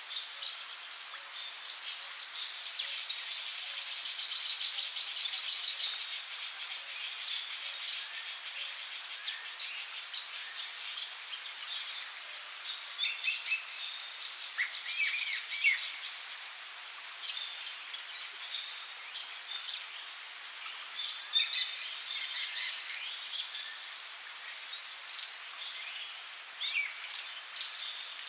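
Amazon rainforest ambience: a steady, high insect drone with many birds chirping and calling over it. A fast, even trill runs a few seconds in, and the loudest burst of calls comes about halfway through.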